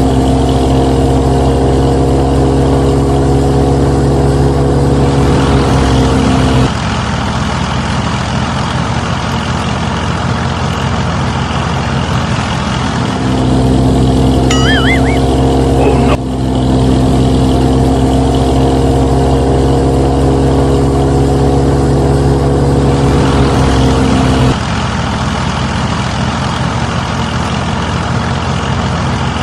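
Engine running steadily with a low throb. Its tone switches between a fuller stretch and a rougher one every several seconds, and the same sequence repeats partway through, the way a looped engine recording does.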